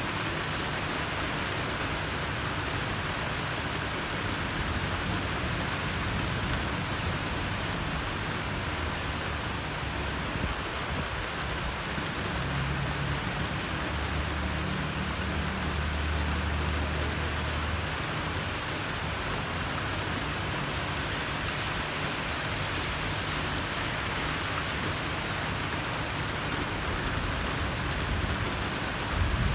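Steady heavy rain, an even hiss, with a low rumble swelling and fading in the middle. A louder low rumble starts right at the end.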